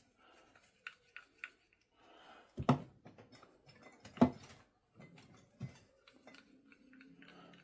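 Light metal clicks and clinks from a Myford lathe's compound slide as its handle and leadscrew are wound out by hand, with two sharper metal knocks, the first about two and a half seconds in and the second a second and a half later.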